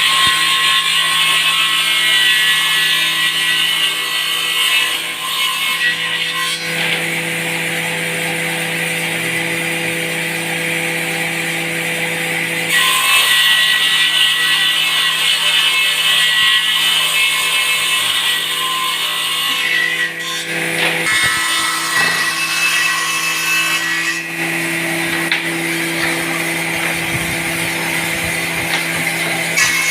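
Electric combination table saw running steadily with a constant hum, with two louder, hissing stretches, one near the start and one in the middle, of the blade cutting through wood.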